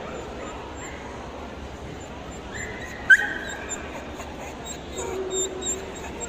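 A dog whining and yipping over the steady hubbub of a busy show hall, with one sharp click about halfway through.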